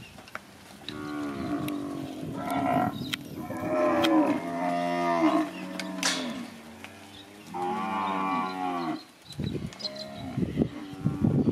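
A yard of Brahman-type heifers mooing: several long, overlapping moos from about a second in, then a pause and another long moo about eight seconds in.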